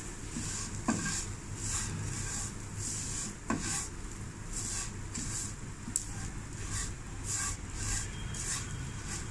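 Wooden spoon stirring fine vermicelli as it roasts in ghee in a metal karahi: a scrape with each stroke, about three every two seconds, and three sharp knocks of the spoon against the pan.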